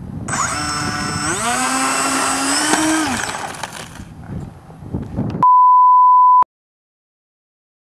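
Model A-10's twin ducted fans spooling up with a rising whine, holding, then winding down and fading after about three seconds. Then a loud steady single-pitch beep for about a second, cut off abruptly into dead silence.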